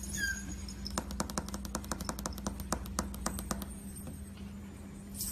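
A quick, even run of light clicks, about six a second for roughly two and a half seconds, from a husky puppy in a Santa hat fidgeting and scratching on a hardwood floor. A short faint squeak comes just before it.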